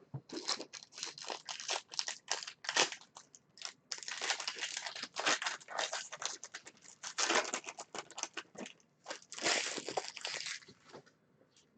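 Crinkling and tearing of trading-card packaging as a box of cards and its packs are ripped open by hand, in dense irregular crackles that stop near the end.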